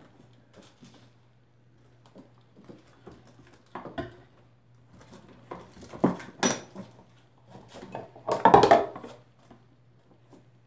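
Handling noise: scattered light clicks, knocks and clinks of objects being moved by hand, with a louder clattering rustle about eight and a half seconds in, over a faint steady low hum.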